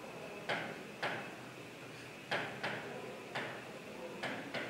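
Marker pen writing on a whiteboard: a string of short, irregular strokes and taps as letters are written, about nine in a few seconds.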